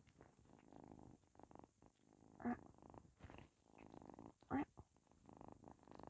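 Kitten purring softly and steadily, close up, with two brief louder sounds about two and a half and four and a half seconds in.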